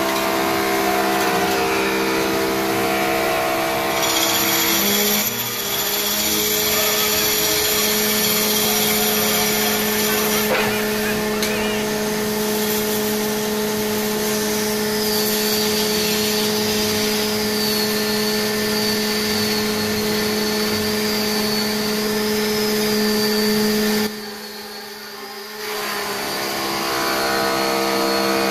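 Electric wood lathe running with a steady motor hum while a hand turning tool cuts a spinning wooden column, giving a continuous scraping hiss. The sound drops away for a couple of seconds near the end, then returns.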